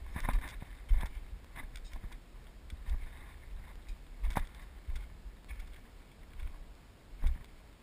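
Uneven footsteps scuffing and crunching on gravel and rock, with low bumps and rubbing from a handheld camera. The steps come at an irregular pace, about one a second, with sharper scrapes now and then.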